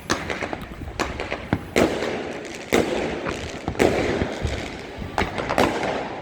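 New Year's fireworks exploding over the city: a string of sharp bangs, roughly one a second, each trailing off in a rumbling echo.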